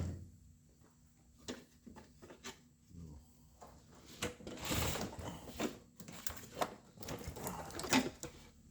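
Scattered clicks, knocks and rustling from hands and tools working on a car's dashboard, with a sharp knock at the very start and a longer rustle about halfway through.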